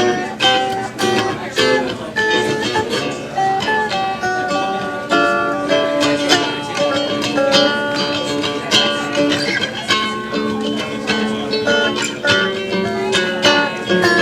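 Acoustic guitar music: a quick run of plucked notes over held tones.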